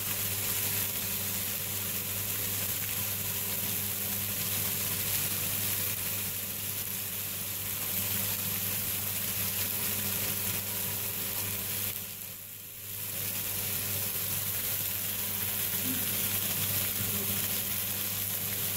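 Chopped vegetables (onion, tomato, capsicum, carrot and beetroot) sizzling steadily in a frying pan on a gas stove, with ground spices just added on top. A steady low hum runs underneath, and the sizzle dips briefly about twelve seconds in.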